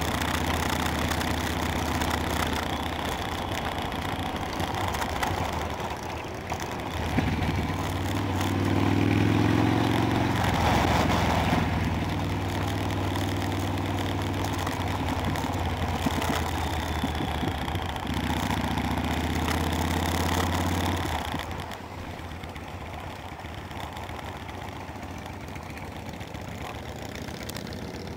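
Motorcycle engine running at road speed, heard from the bike with wind noise on the microphone. It pulls harder with rising pitch for a couple of seconds about a third of the way in and again briefly later. About three quarters of the way through it drops to a quieter, lower note, off the throttle.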